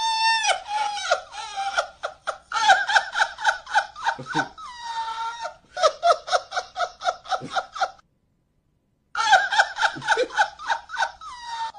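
A man's high-pitched laugh in rapid, evenly spaced bursts of about five a second, edited and repeated. It cuts out abruptly to silence for about a second two-thirds of the way through, then starts again.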